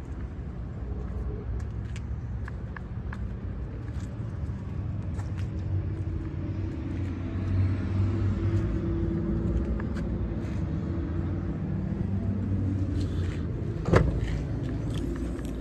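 Low rumble of a motor vehicle running, swelling for a few seconds in the middle and fading again, with one sharp knock near the end.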